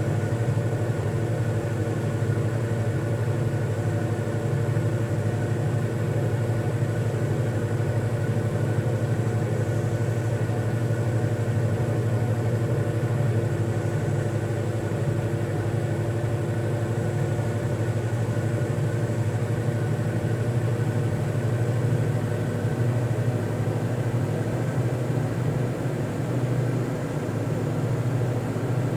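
Steady low droning hum of a running machine, even in level, with no breath-by-breath rise and fall.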